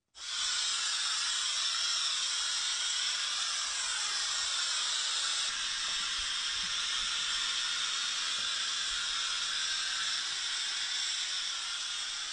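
Handheld steam cleaner hissing steadily as it jets steam over a mattress and bedding to kill bed bugs. The hiss cuts in abruptly and holds at an even level throughout.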